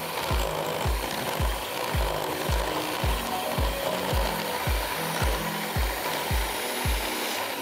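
Electric hand mixer running steadily, churning crumbly shortcrust dough in a glass bowl. Background music with a steady deep beat, about two beats a second, plays alongside.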